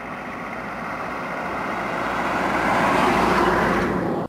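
A small box truck approaching along the highway and passing close by. Its engine and tyre noise grows steadily louder to a peak about three seconds in.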